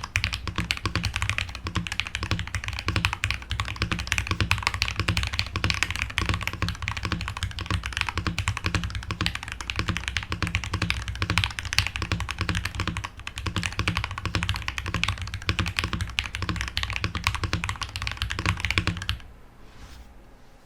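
Typing on a Feker FK68T 65% mechanical keyboard fitted with linear frankenstein switches (JWK Black housings with Gateron Pro Silver stems), Aifei Mecha-01 keycaps and a tape mod: a fast, steady stream of keystrokes that stops about nineteen seconds in.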